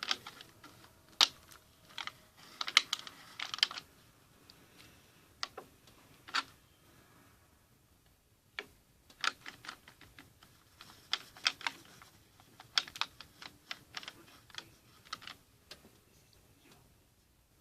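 Small sharp clicks and taps in irregular clusters, from plastic containers and tools being handled while purple watercolour paint is added to hand-soap slime; a quieter gap comes about halfway through.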